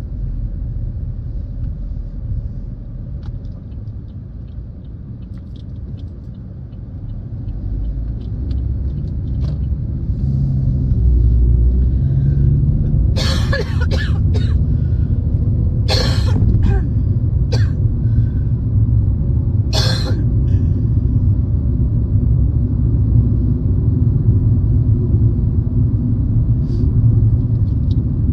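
A person with a cold coughing in fits inside a moving car: a run of several hard coughs about halfway through, then a few more single coughs. Throughout there is the low rumble of the car's road and engine noise, which grows louder about eight seconds in.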